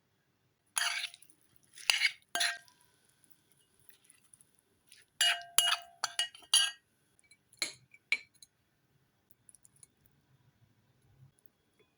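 Utensils clinking against dishes, with short, sharp ringing strikes: three near the start, a quick cluster in the middle, and two more shortly after.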